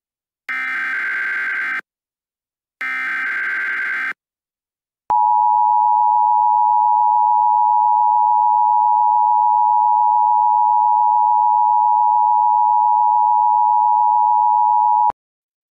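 Emergency Alert System SAME header: two bursts of warbling digital data tones, each a little over a second long and about a second apart. A steady EAS two-tone attention signal then sounds for about ten seconds and cuts off suddenly.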